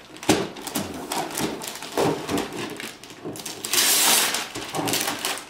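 Wrapping paper being torn and crinkled by hand as a present is unwrapped, in irregular rips and rustles, with the longest, loudest tear about four seconds in.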